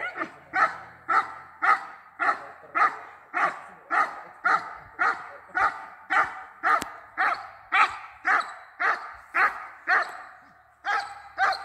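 A German Shepherd–type dog barking in a steady, rapid series of nearly two barks a second, with a short break near the end. This is the guarding bark of protection (bite-work) training, aimed at the helper.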